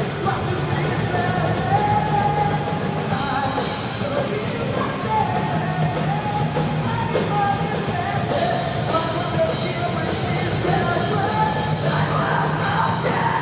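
Live rock band playing an original song: drums with cymbals, electric guitars and a vocalist singing into a microphone.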